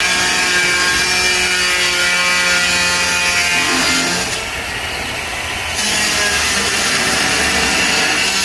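Makita marble saw (handheld masonry cutter) running with a steady, pitched motor whine. About four seconds in, the sound drops in loudness and changes tone, then picks back up about two seconds later.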